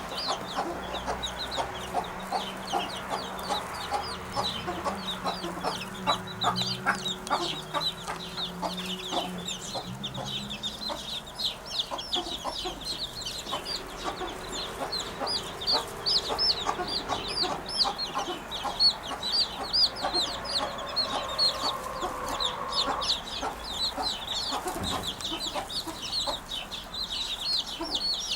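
Birds calling at a nest: a steady stream of quick, high chirps throughout, over lower clucking calls that sound like a chicken, which the nest-building common wood pigeons are taken to make.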